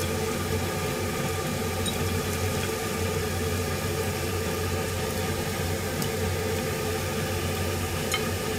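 Steady mechanical hum of running kitchen appliances, with a constant low drone and faint steady tones above it. A few faint light clicks of chopsticks against a plate come about two, six and eight seconds in.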